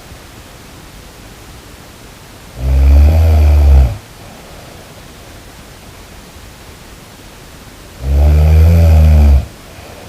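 A sleeping person snoring loudly: two deep snores, each about a second and a half long and about five seconds apart, with a steady background hiss between them.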